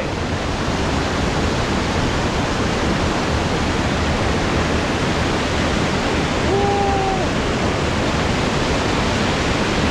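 Waterfall in a wooded glen: a loud, steady rush of falling water. About two-thirds of the way in there is a short held tone.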